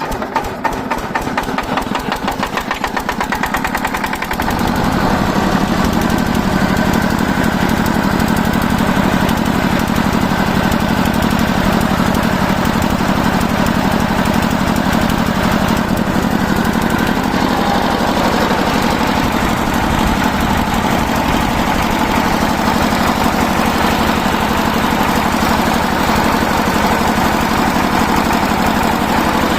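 Usha stationary diesel engine, started by hand crank, picking up speed over the first few seconds. From about four seconds in it runs loud and steady at speed.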